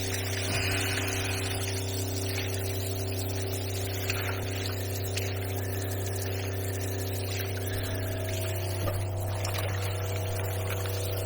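Shower head spraying water into a shower pan, over a steady low hum.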